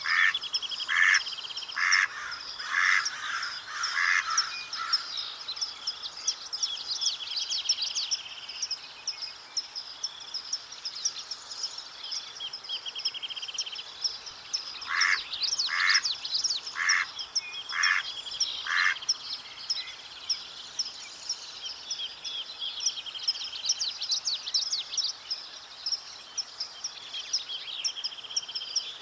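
Mallard quacking in two runs of evenly spaced quacks about a second apart: six at the start and five more about halfway through. Other songbirds chirp and trill continuously in the background.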